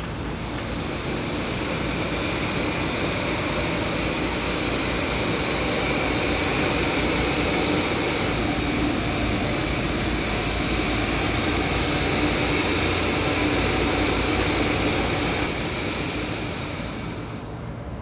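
Pickup truck carrying a truck camper driving slowly into a large test chamber: a steady, loud rushing mechanical noise with a faint whine, swelling through the middle and easing off near the end.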